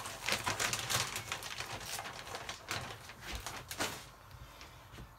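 Rustling and crackling of loose potting soil being handled and put into a small pot, a run of quick crackles that fades out about four seconds in.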